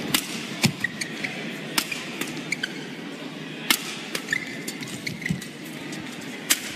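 Badminton rackets striking a shuttlecock in a fast rally: sharp cracks every second or so, with sports shoes squeaking briefly on the court floor in between.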